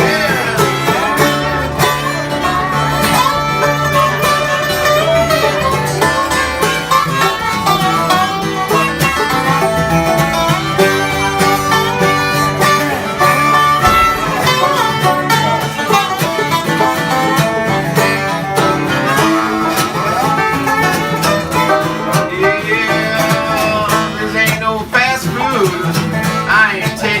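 Instrumental break of a bluegrass-flavoured country song, played on plucked strings: banjo and acoustic guitar.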